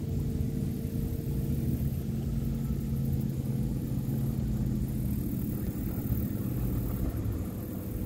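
A steady low engine hum over a rumble, holding a few even tones for several seconds.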